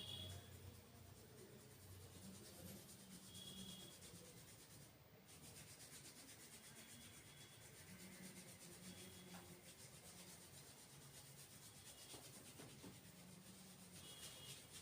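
Faint rubbing of hands working over hair and scalp during an oil massage.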